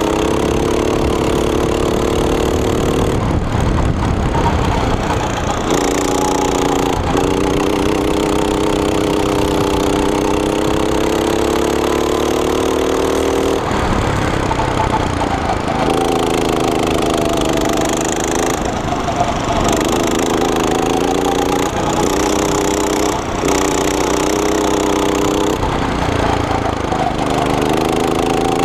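Go-kart's small single-cylinder four-stroke engine running hard, heard close up from the driver's seat. Its pitch keeps rising and falling, with several short drops where the throttle is lifted for corners before it picks up again.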